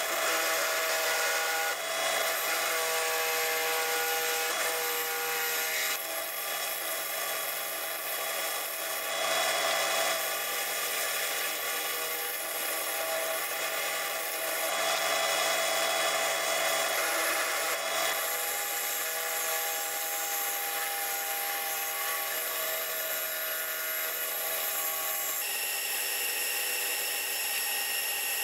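Bench drill press motor running with a steady whine while a hand rasp scrapes against a spinning cherry wood blank, turning it to shape. The whine's tones shift a few times as the cut goes on.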